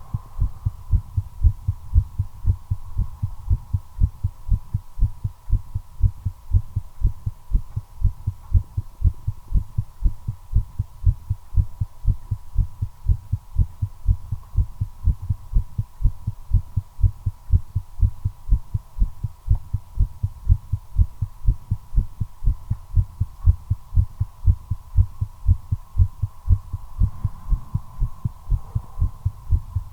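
Human heartbeat beating fast and regularly, a steady run of low thumps, with a faint steady high tone underneath. The uploader puts the quickened rate down to nicotine from smoking a cigarette.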